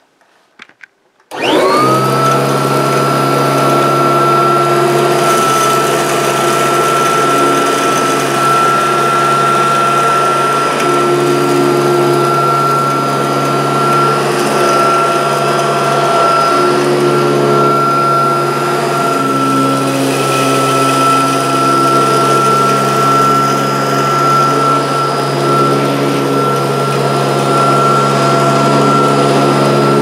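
Kirby Tradition upright vacuum cleaner switched on about a second in, its motor spinning up quickly and then running steadily with a high whine while it is pushed over carpet.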